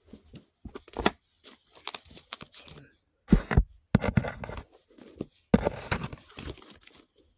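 Stack of paper index cards being handled and shuffled: papery rustling and sliding in several bursts with short pauses between them.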